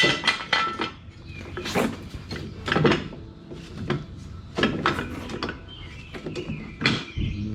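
A series of irregular clinks and knocks from metal tools and parts being handled, about a dozen sharp hits spread out over several seconds.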